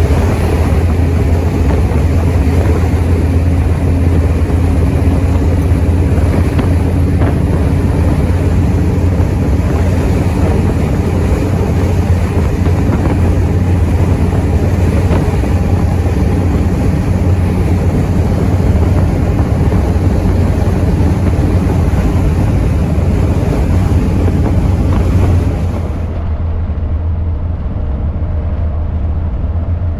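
1932 Ford roadster hot rod being driven: steady engine and road noise with a deep low rumble and wind on the microphone. About 26 seconds in, the sound turns duller and a little quieter.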